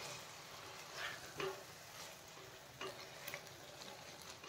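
A spatula stirring chicken pieces and ground spices in a kadai: a few faint scrapes and ticks over a low sizzle.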